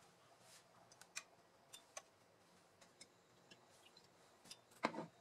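Faint, scattered light ticks and clicks as avocado oil is poured into a nonstick frying pan, with one louder clack near the end.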